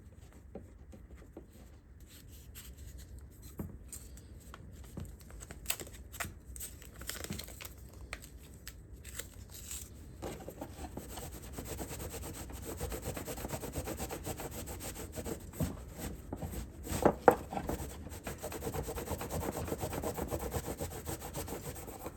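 Hand rubbing and scraping at the workbench, with scattered clicks and knocks; from about halfway through the scraping turns steadier and denser, with a sharp knock a few seconds before the end.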